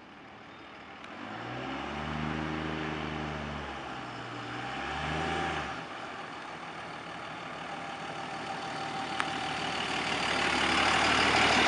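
2002 Dodge Ram's 24-valve Cummins inline-six turbo diesel through a 5-inch straight pipe, pulling hard twice, about two and five seconds in, then backing off near six seconds. It then runs on light throttle, growing steadily louder toward the end.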